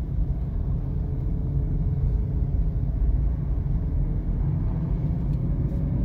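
Steady road and engine rumble heard inside the cabin of a moving car.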